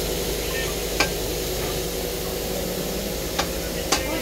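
A few sharp wooden knocks, about a second in and twice near the end, as cut timber blocks are handled and stacked, over a steady hiss of outdoor background noise.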